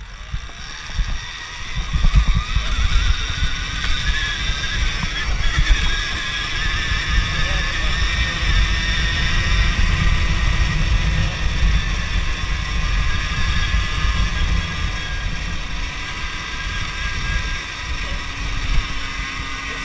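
Alta Redshift MXR electric dirt bike riding along a dirt trail. The motor gives a steady high whine that picks up about a second in as the bike pulls away, under a heavy low rumble of wind buffeting the chest-mounted camera.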